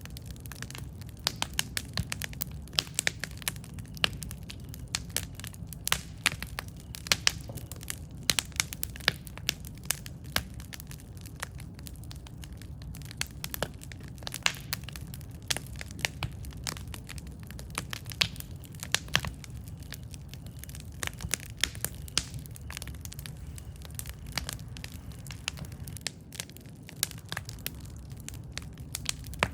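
Campfire burning wood, crackling with dense, irregular sharp pops and snaps over a steady low rumble.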